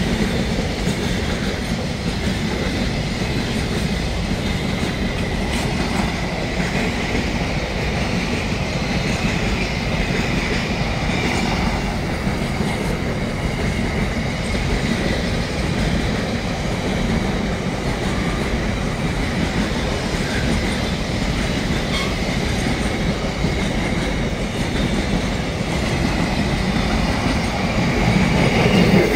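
Container freight train's wagons rolling past close by: a steady rumble of wheels on rail with clickety-clack over the rail joints and a faint steady high wheel squeal. The sound grows louder near the end.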